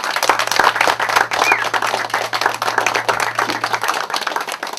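Audience applause: many hands clapping at once in a dense patter, easing off a little near the end.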